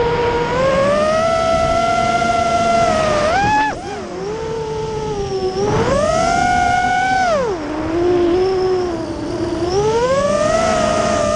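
FPV racing quadcopter's brushless motors and propellers whining, heard from the onboard camera, the pitch swelling and dropping with the throttle. The pitch climbs early on and holds, dips sharply about three and a half seconds in, surges high again around six seconds, falls away at about seven and a half, and climbs once more near the end, over a steady rush of wind.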